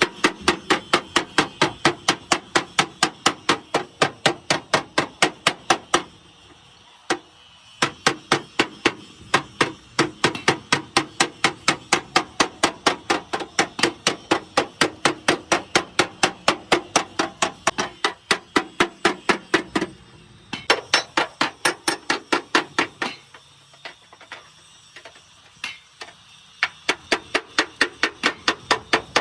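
Hammer striking metal bodywork in quick, even blows, about three a second, with short pauses around six and twenty seconds in and only a few scattered blows a little before the end.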